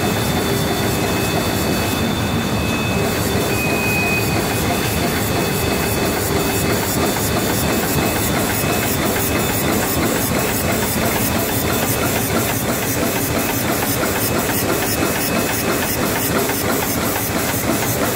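Plastic bag making machine running at production speed: a steady mechanical hiss and whine with a fast, even clicking from its repeating cycle.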